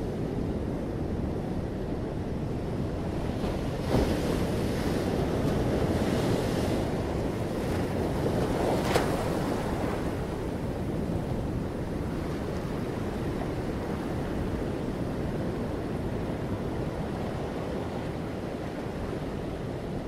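Sea surf washing onto a rocky shore in a steady rushing wash, swelling louder for several seconds in the first half. A sharp knock sounds about four seconds in.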